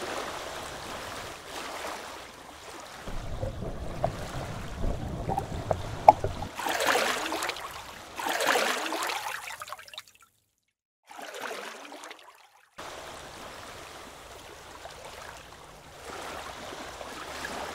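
Water splashing and trickling around a stand-up paddleboard as the paddle dips and pulls, with two strong swishing strokes near the middle. The sound cuts out briefly to silence twice near the middle.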